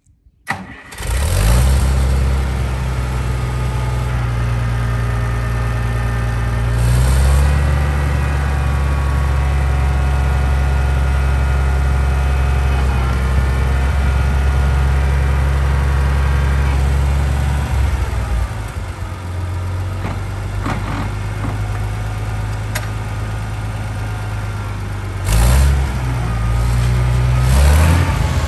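International 560's six-cylinder gasoline engine running. About seven seconds in, the engine speeds up and stays up for roughly ten seconds as the front loader is raised, then drops back to a slower run. Two short revs come near the end.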